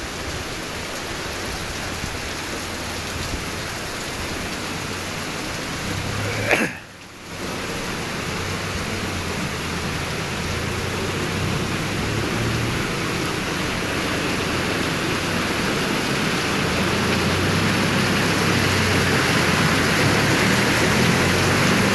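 Extremely heavy rain pouring down on a street and pavement, a steady dense hiss. About seven seconds in there is a brief jolt and a short drop in the sound; afterwards the rain grows gradually louder.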